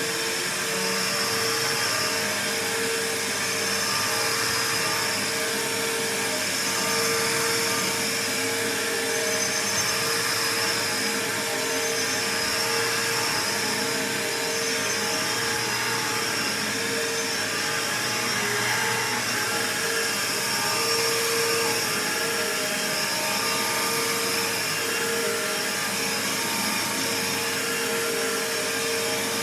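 Bissell PowerForce bagless upright vacuum cleaner running steadily: a constant motor whine over a broad rush of air.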